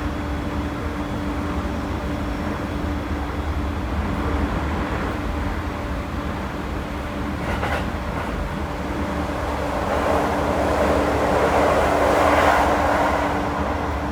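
Toei 10-300 series electric train heard from inside the car while running: a steady rumble with a constant hum. There are a couple of brief clicks about eight seconds in, and the rushing noise swells louder from about ten to thirteen seconds in.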